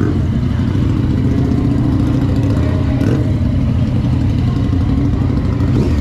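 Motorcycle engine running at a fairly steady pitch, the 2016 Yamaha FZ-09's inline three-cylinder.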